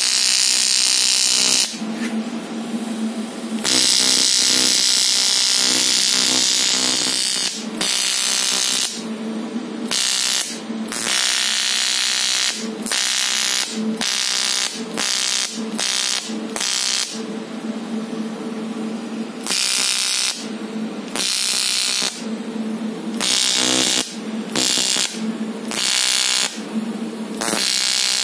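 AC TIG welding arc on a cast aluminium wheel, from an Aurora Pro Inter TIG 200 AC/DC Pulse welder: a steady buzz with a hiss over it that cuts in and out many times, mostly in bursts of under a second, as the crack is filled.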